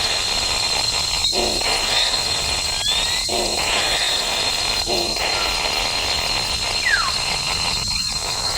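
Steady hiss with a thin high whine, broken by a few brief chirps, one falling sharply in pitch about seven seconds in.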